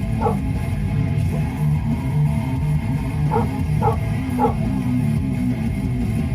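Guitar-led music playing steadily, with a dog barking over it: one bark just after the start, then three barks about half a second apart near the middle.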